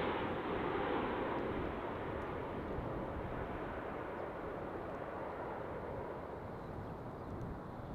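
Jet airliner's engines on short final, a steady rushing roar that slowly fades away as the aircraft moves off.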